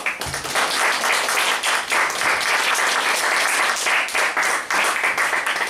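Audience applauding: dense hand clapping that starts suddenly and holds steady.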